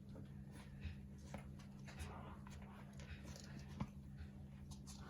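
Havanese puppies stirring, heard as faint scratching and rustling with small ticks and one sharper click near the end, over a steady low hum.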